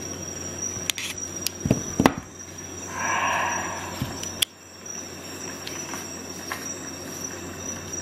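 Metal clicks and taps from a Leatherman Charge Plus multi-tool being handled, its handles and pliers opened and its parts set down on a glass surface; the sharpest click comes about two seconds in. A short scraping rub about three seconds in.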